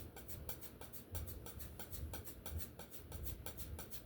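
Oil paint being mixed with a palette knife on a palette: a quick run of light scraping and tapping strokes.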